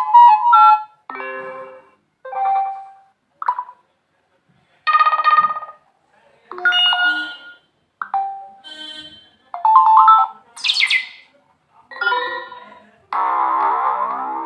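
Nokia 5.4 phone previewing its built-in notification tones one after another: about ten different short chimes and jingles, each lasting a second or less, with brief silences between them as each new tone is selected.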